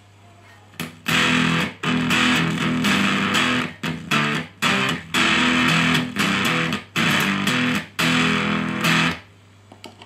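Electric guitar played through a bare Unshaven Fuzz pedal circuit with resistor R2 removed: heavily fuzzed, fizzy chords in a rhythmic pattern, starting about a second in and stopping shortly before the end, with an unstable, springy-sounding tone. A steady mains hum, picked up by the long unshielded leads, runs underneath.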